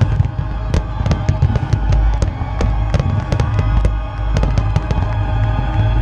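Aerial firework shells bursting in a barrage: many sharp bangs in quick, uneven succession over a deep rumble. The display's soundtrack of Disney film music plays underneath.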